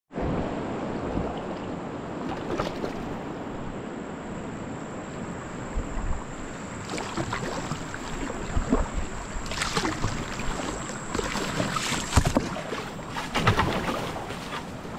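Shallow river water running past a kayak hull, with paddle strokes splashing in the water; the splashes come more often from about seven seconds in.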